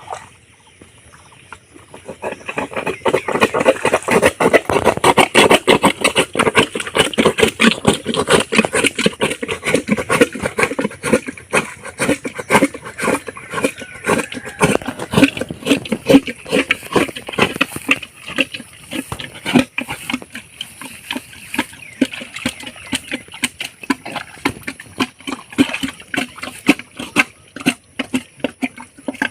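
Rapid, irregular splashing of water, starting about two seconds in and loudest in the first half: a small pond being bailed out by hand.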